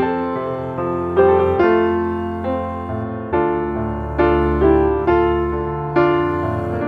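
Background piano music, slow chords struck about once a second, each ringing and fading before the next.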